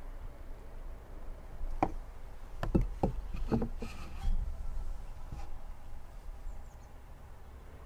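An aluminium mug knocked and set down on a wooden board: a handful of short, sharp knocks over a few seconds, over a steady low rumble.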